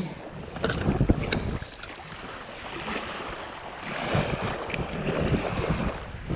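Wind buffeting the microphone over lapping sea water, with a few light clicks in the first two seconds.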